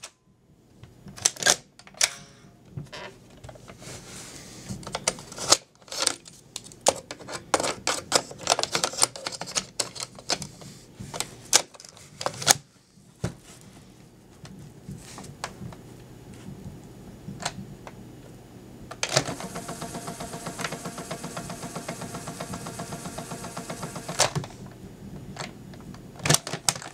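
Clicks and clunks of the plastic piano-key buttons on a 1980 Fisher-Price #826 tape player being pressed, with handling of the toy. In the second half its tape motor whirs steadily for about five seconds, winding the cassette fast, and stops with a click.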